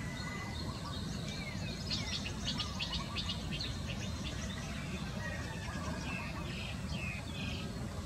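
Birds chirping in the background, with a quick run of short high notes about two seconds in and scattered calls later, over a steady low outdoor rumble.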